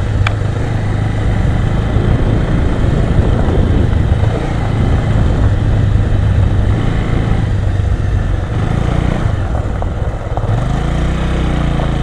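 Motorcycle engine running steadily while riding at low speed on a gravel lane. Near the end the engine note turns steadier and cleaner, settling toward idle.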